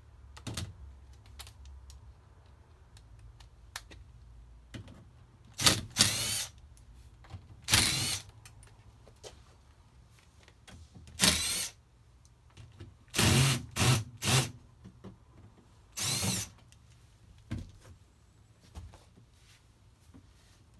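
Cordless drill whirring in about eight short runs, each under a second and spinning up at its start, as it backs the screws out of an air handler's access panel. Small clicks of handling come between the runs.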